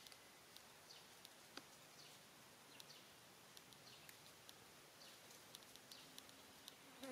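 Near silence: faint outdoor ambience with scattered faint, short high chirps and clicks.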